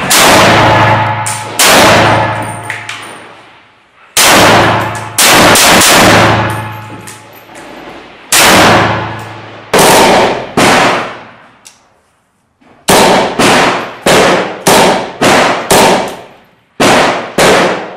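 Kalashnikov-pattern assault rifle fired in single shots from inside a building, each shot loud and echoing with a long fading tail. The shots come a second or more apart at first, then in a quicker string of about two a second in the last third.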